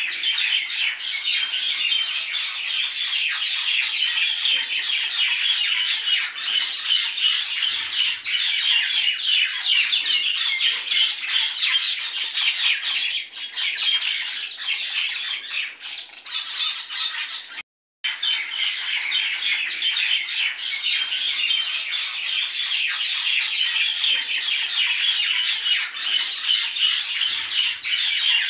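A flock of small birds chirping and chattering densely and without pause, briefly cut off about 18 seconds in before resuming.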